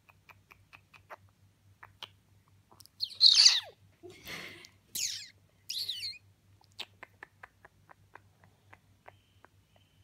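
Senegal parrot making a run of quick soft clicks, then a loud call that falls steeply in pitch, a breathy sigh-like noise and two short sliding calls, before clicking again. These are the whining and sighing noises it makes when it wants something it can't have.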